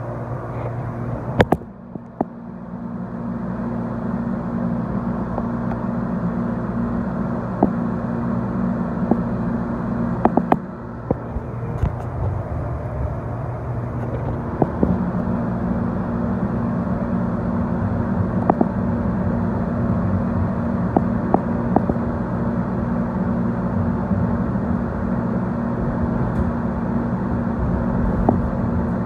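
Tide light-rail car (Siemens S70) pulling away. After a couple of sharp clicks about a second and a half in, its running noise builds over the next two seconds into a steady hum of traction motors and steel wheels on rail. Scattered clicks and knocks from the track and car body run through it.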